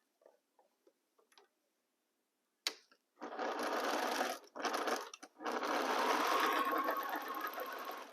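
Sewing machine stitching a patchwork seam, starting with a click about three seconds in and running in three spells separated by brief pauses, stopping near the end. Faint small clicks come before it.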